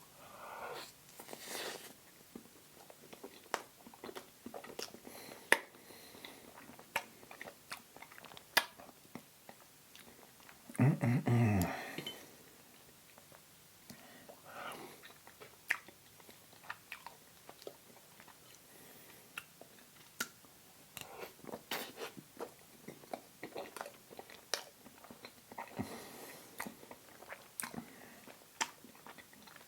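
Close-miked eating sounds: soft chewing, wet mouth clicks and lip smacks while eating creamy pumpkin spice cheesecake with whipped cream. About eleven seconds in comes a brief low hum from the eater, the loudest sound in the stretch.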